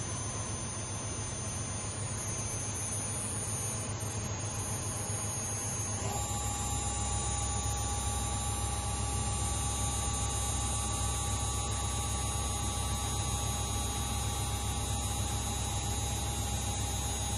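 Unisign UV 4000 vertical machining centre running: a steady high whine over a low hum. About six seconds in the tones shift, with new steady pitches coming in and the low hum growing stronger.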